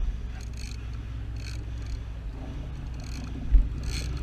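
Low steady rumble of a fishing boat's engine and wind at sea, with a few short splashy hisses and one dull thump about three and a half seconds in.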